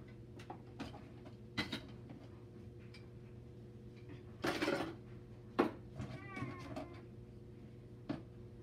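Toy kitchen pieces being handled: a few sharp knocks and a short clatter, over a steady low hum. A brief high-pitched call a little after the middle.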